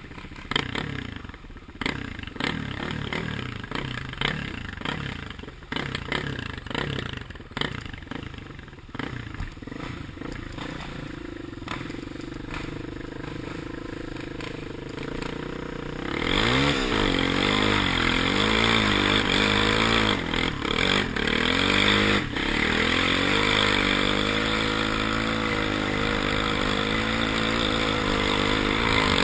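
Kawasaki KFX400 sport quad's single-cylinder four-stroke engine heard from the rider's helmet, with frequent knocks and rattles as it rides over bumpy sand trail. About halfway through the engine revs up and holds high revs, much louder.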